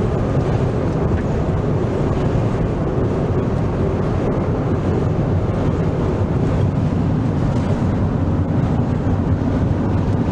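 Strong wind rushing and buffeting against a car, heard from inside the cabin as a steady loud rush with a low rumble. This is the wind in front of an approaching haboob dust storm.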